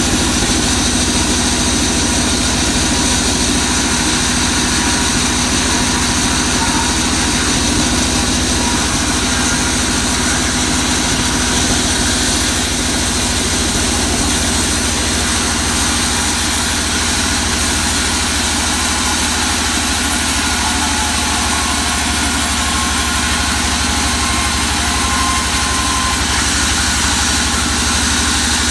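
Band sawmill running steadily: a constant machine drone with a high hiss while a waru log is fed through the saw blade.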